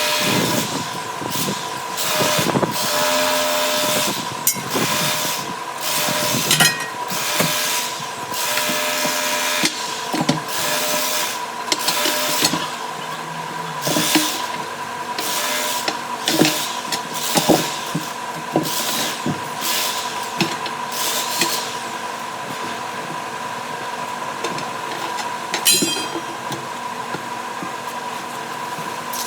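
Tyre-workshop tool noise: a steady machine hum with many short, harsh noisy bursts and a few knocks, the bursts dying away after about twenty seconds.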